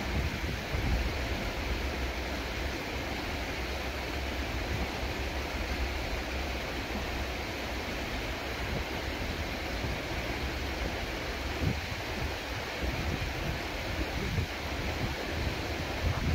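Wind buffeting the microphone: a steady rushing noise with a low rumble underneath.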